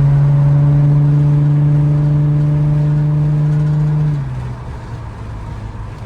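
Nissan 350Z's VQ35DE V6 running through a full ISR Performance exhaust (test pipes, Y-pipe and catback) while driving: a loud, steady exhaust drone whose pitch creeps slowly up, then the note drops and quietens about four seconds in.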